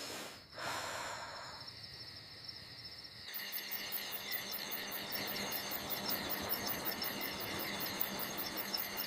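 Night ambience of crickets chirping in a fast, even rhythm, setting in about three seconds in after a soft whooshing swell.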